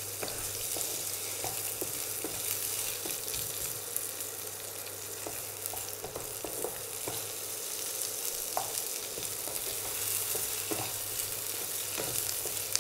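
Boiled potato chunks sizzling steadily in oil on low heat in a non-stick kadhai, stirred with a wooden spatula that scrapes and clicks against the pan now and then.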